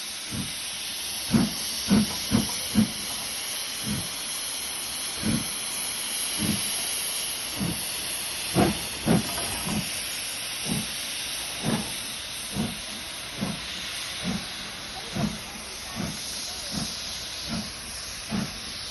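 Steady hiss of steam escaping from a standing steam locomotive, with short dull knocks at uneven intervals, about one every second.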